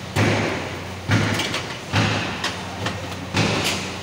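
The metal case of a removed Toyota Aqua hybrid battery pack scraping and knocking on a concrete floor as it is shifted by hand in jerks, about five loud scrapes roughly a second apart, over a steady low hum.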